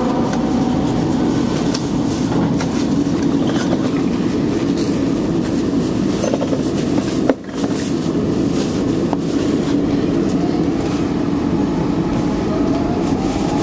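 SEPTA Market-Frankford Line AdTranz M4 train running along the track: a steady rumble of wheels on rail with clicks over the rail joints. There is a sharp bang about seven seconds in with a brief drop in the noise, and a rising whine near the end.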